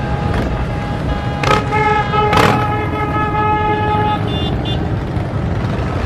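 Motorcycle engines rumbling steadily while a vehicle horn is held for about three seconds. Two sharp cracks come during the honk, and two short high beeps follow.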